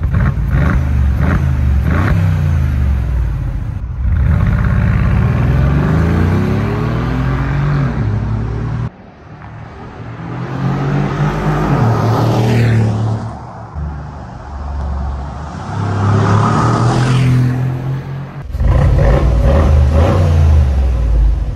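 Mercedes-Benz G550 V8 with a Fi Exhaust valved cat-back exhaust accelerating hard past, its pitch climbing and dropping through the gears. The passes swell and fade. About 18 seconds in it is revved at a standstill with the exhaust valves open, louder and sharper.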